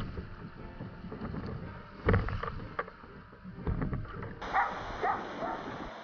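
Choppy water splashing and slapping against a plastic sit-on-top kayak's hull as a paddler wades beside it and climbs aboard, with wind buffeting the microphone; the loudest splash comes about two seconds in. Past the middle the sound changes to a steadier hiss of water and wind.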